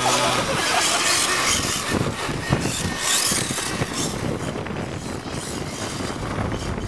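Traxxas Ken Block Ford Fiesta RC car's brushless electric motor whining and rising and falling in pitch as the car speeds up and slows, with its tyres running on tarmac.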